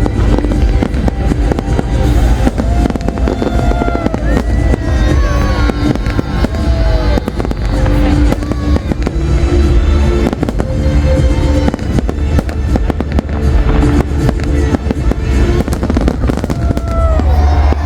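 Large aerial fireworks display: a continuous rapid barrage of bangs and crackling shells with a heavy low rumble, while music plays loudly alongside.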